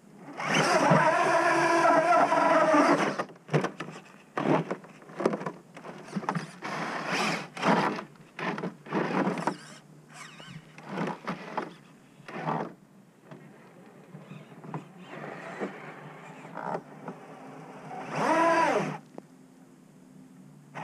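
A Traxxas TRX-4 crawler's Hobbywing AXE brushless motor and drivetrain whining on a 3S battery in stop-start throttle bursts as it crawls. There is a longer burst at the start, many short blips through the middle, and near the end a burst whose pitch rises and falls.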